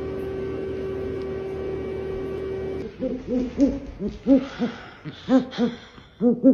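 A steady held tone for about the first three seconds, then an owl hooting: a quick series of short hoots that rise and fall in pitch, about three a second.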